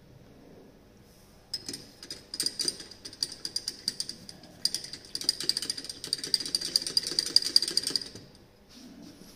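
Glass rod stirring a solution in a glass beaker, clinking rapidly against the glass with a ringing tone. It starts about a second and a half in, breaks briefly near the middle, and stops about eight seconds in. This mixes a freshly added drop of titrant into the solution during the titration.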